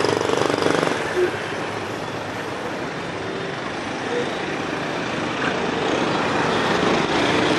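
Steady street traffic noise of motorbikes running along a city street, with engine hum most noticeable in the first second.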